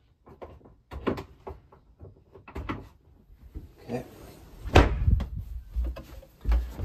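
Wooden cabin locker and cabinet panels being knocked and handled: a series of sharp knocks and dull thuds, the loudest a little after the middle and another near the end.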